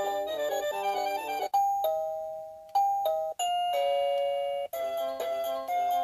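HeimVision HMB1 plug-in doorbell chime receiver playing electronic ringtone melodies, each tune cut off abruptly and replaced by a different one several times, as the chime steps through its ringtone choices.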